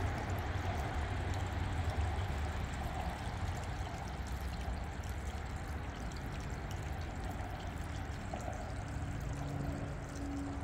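Water trickling and pouring steadily.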